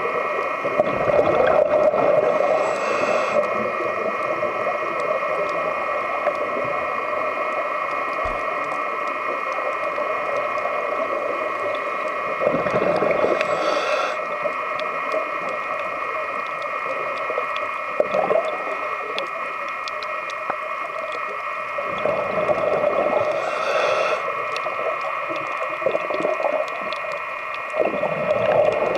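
Underwater ambience: a steady whine of several constant tones, with a noisy rush of scuba exhaust bubbles about every ten seconds as the diver breathes out.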